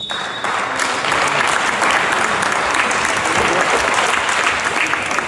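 Spectators applauding in a sports hall: dense, steady hand-clapping that swells about half a second in, just after the game buzzer cuts off.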